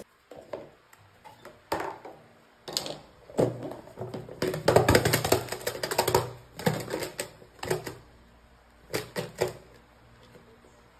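Plastic food container being shaken and knocked against a table, giving several bursts of rapid clattering and rattling.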